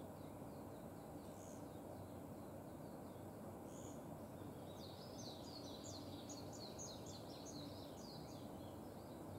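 Japanese white-eye singing: scattered short high notes at first, then about five seconds in a fast, high twittering song that runs for some three and a half seconds.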